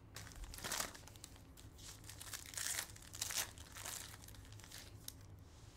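Silver foil trading-card pack wrapper crinkling as it is torn open by hand, in a handful of short rustling bursts.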